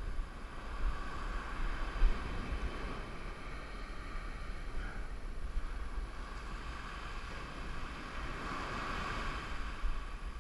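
Wind buffeting the microphone in gusts, over the steady wash of ocean surf on a sandy beach, the surf louder near the end.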